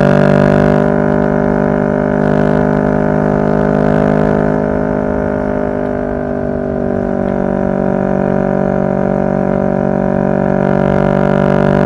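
2023 CFMoto 650NK's parallel-twin engine running at a steady cruise, a droning note that holds nearly the same pitch, easing off slightly around the middle and picking up again toward the end.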